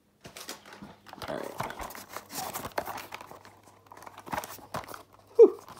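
Hands handling and opening a cardboard trading-card theme deck box: irregular clicks, taps and cardboard rustles, with one brief louder sound near the end.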